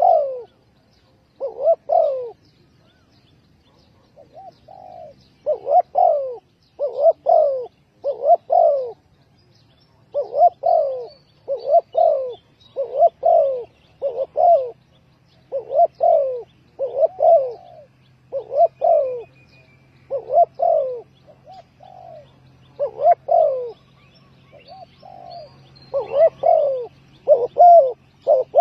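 Spotted dove cooing over and over: short low coo notes, mostly in twos and threes, with short pauses between the phrases.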